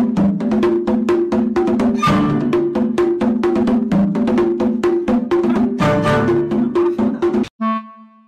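Background music with a quick, steady percussive beat over a repeating tune. It breaks off about seven and a half seconds in, and a single held note follows.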